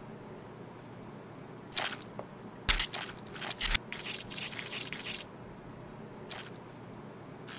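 Squishing, crunching sounds of modelling clay being kneaded and pressed: a run of short crackly bursts from about two to five seconds in, then one faint one near the end.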